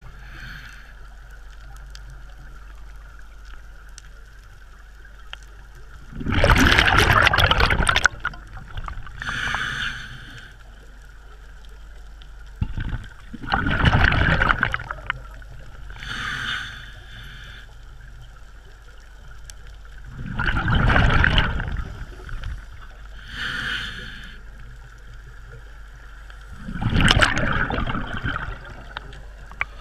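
Scuba diver breathing through a regulator underwater: four loud bursts of exhaled bubbles about seven seconds apart, each lasting a second or two, with a shorter, quieter hiss between them.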